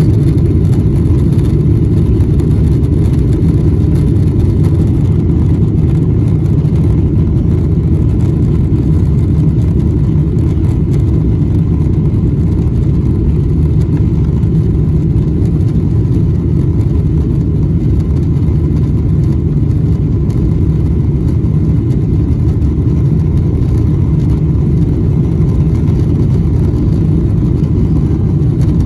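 Cabin noise of a Boeing 777-300ER during its takeoff roll: its GE90 engines at takeoff thrust and the wheels on the runway, heard from inside the cabin as a loud, steady, low-pitched drone.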